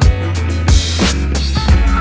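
Background music with a steady beat: a bass line under drum hits about every 0.6 to 0.7 s, in a hip-hop or funk style.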